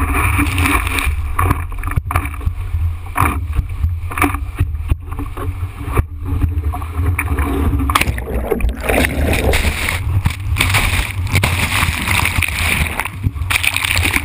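Water rushing and spraying over a surfboard-mounted action camera's housing as the board rides a breaking wave: a constant heavy low rumble with irregular splashes and knocks.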